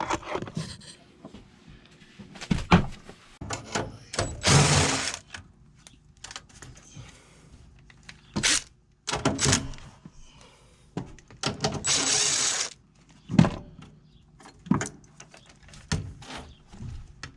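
Hands-on work on an HVAC unit during an ECM blower motor swap: scattered knocks and clicks of metal parts and tools, with two scraping rushes about a second long, one near the start and one about two-thirds of the way through.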